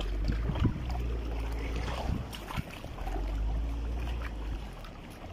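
Low, uneven rumble of wind buffeting the microphone, with a few small knocks from the phone being handled.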